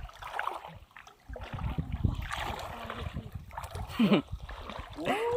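Water splashing and sloshing as someone wades and scoops for fish with a net in shallow marsh water, with irregular bumps. A short pitched sound comes about four seconds in.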